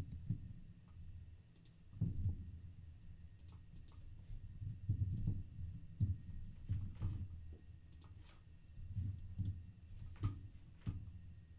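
Computer keyboard keystrokes and mouse clicks, irregular and scattered, some in quick little runs, over a faint steady hum.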